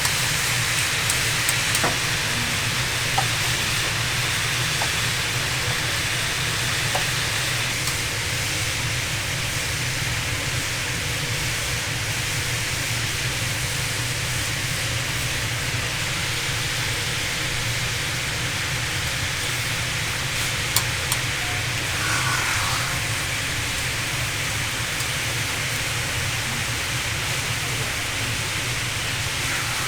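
Tteokgalbi patties sizzling steadily as they cook, over a steady low hum, with a few faint clicks.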